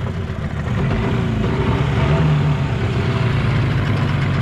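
The rebuilt 25 hp Yamaha two-stroke outboard running steadily while pushing an inflatable dinghy, picking up slightly about a second in.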